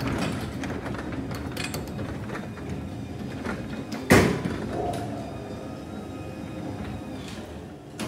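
Electric garage door opener raising a new sectional garage door on its tracks: a steady motor-and-rolling noise, with one sharp clunk about four seconds in.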